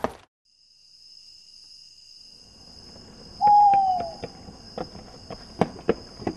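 Night ambience of crickets chirping in a steady high drone, starting just after a moment of silence. About three and a half seconds in, an owl gives one falling hoot, the loudest sound, and scattered light clicks are heard.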